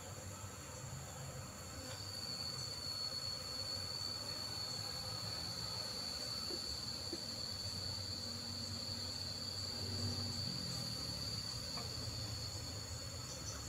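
A steady, high-pitched insect call sets in about two seconds in and holds almost to the end. Under it is a faint low hum of honeybees swarming over comb being cut from a wooden box hive.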